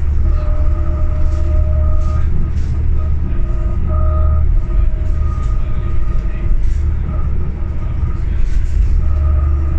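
Inside a 2006 New Flyer D40LFR diesel city bus under way: a steady low engine rumble with a whine over it that fades in and out several times.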